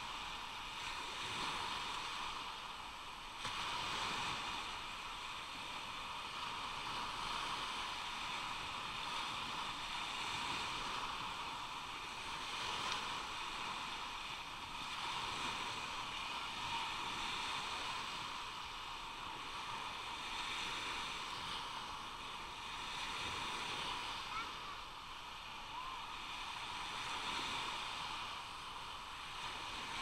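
Sea waves washing onto a sandy beach: a steady wash that swells and eases every few seconds.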